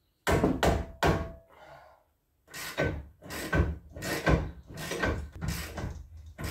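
Hand hammer striking again and again to break loose the rear brake caliper's 18 mm bolts, which are seized with factory Loctite. Three quick blows, a short pause, then an even run of blows about three a second, each with a brief metallic ring.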